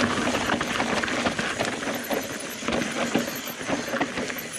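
Mountain bike rolling over loose, rocky ground: tyres crunching on stones, with irregular knocks and rattles from the bike.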